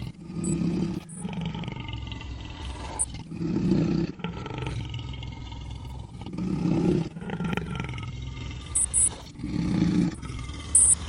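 A lion's roar sound effect played in reverse: four low roars about three seconds apart, each swelling and then cutting off sharply, with quieter backward grunts between them.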